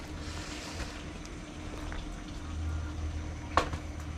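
Faint rustling of a black plastic shipping bag being handled, over a steady low hum, with one sharp click about three and a half seconds in.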